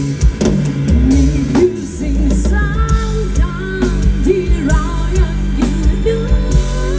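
Pop-rock band music with no words sung: a steady drum kit beat and bass under a lead melody that bends and slides in pitch.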